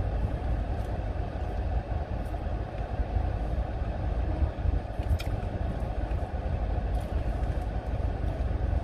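Steady low rumble heard inside a parked car's cabin, with a couple of faint light clicks about halfway through.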